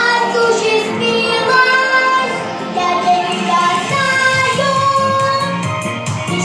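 A girl's singing voice with instrumental accompaniment, holding long sung notes.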